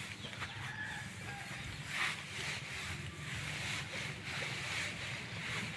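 Dry paddy straw rustling and crackling as it is scooped up off the ground by hand, in uneven bursts.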